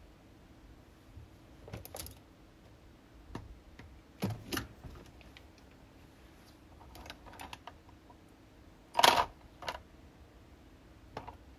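Scattered light clicks and taps of small hard objects being handled, each short and separate, with the loudest knock about nine seconds in.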